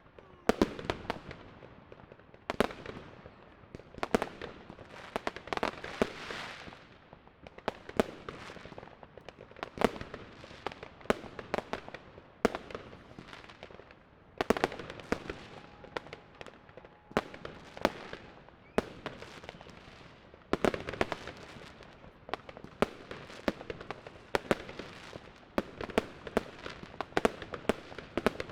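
New Year's Eve fireworks and firecrackers going off all around: many irregular sharp bangs, some echoing, over continuous crackling.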